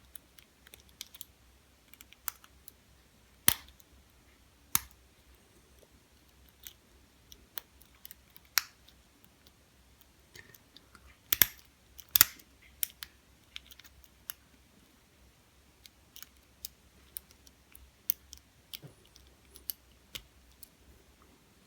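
Lock pick and tension wrench working the pin-tumbler cylinder of a Squire SAL/40 padlock: scattered small metal clicks and ticks as pins are lifted and set, with a few sharper clicks, the loudest two a little over halfway through.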